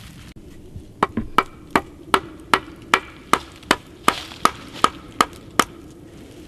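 Hatchet chopping a stick on a wooden stump used as a chopping block: a quick, even run of about a dozen sharp wooden strikes, two to three a second, starting about a second in and stopping near the end.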